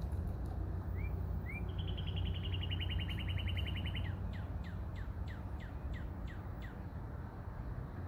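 Songbirds singing: two short rising notes, then a fast, even trill, then a series of about eight quick downslurred notes. A steady low rumble runs underneath.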